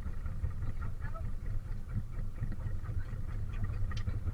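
Steady low rumble of a fishing boat's engine running at sea.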